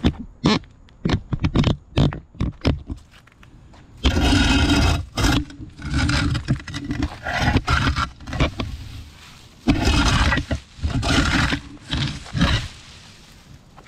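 Steel flat-bladed shovel scraping along a concrete sidewalk, pushing leaves, grass and dirt off the edge. It opens with a quick run of short sharp knocks, then several long grinding scrapes of a second or more each.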